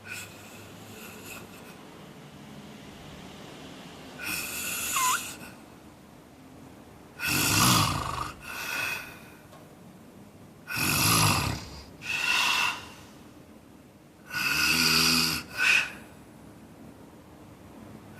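A man snoring in his sleep: four snores about three and a half seconds apart, each followed by a shorter, quieter one, the first snore softer than the rest.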